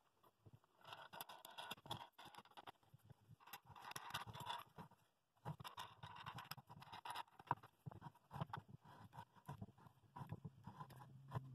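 Faint handling noise: light, irregular clicks and scraping, with a brief quiet gap about five seconds in.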